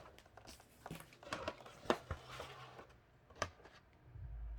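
Packaging being handled and opened by hand: scattered light rustles and sharp clicks, with a low thud near the end.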